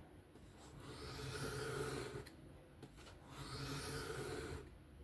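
A folding-knife blade drawn freehand along a sharpening stone in two slow, long strokes, a soft rasping with a short pause between them, while the edge is being refined after raising a burr.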